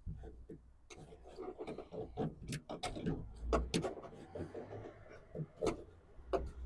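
Irregular clicks, knocks and rubbing as car parts are handled and worked loose by hand.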